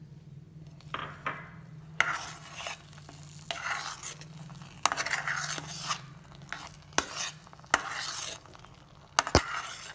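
Metal spatula stirring and scraping a thick almond-and-sugar paste around a pan, with sharp clinks of metal on the pan about once a second.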